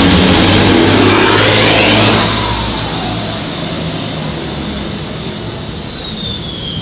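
Engine of a BMW E92 3 Series coupe accelerating past in a tunnel, its pitch rising for about two seconds. After that it is quieter as the car moves away, with a high whine that slowly falls in pitch.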